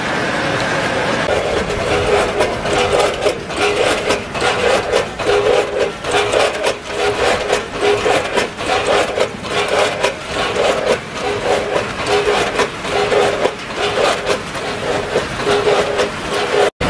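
Snack packing line running, with a multihead weigher and vibrating feed conveyors moving fried potato sticks. It makes a rhythmic rattling and scraping, about two pulses a second, over a steady machine hum, and cuts off briefly near the end.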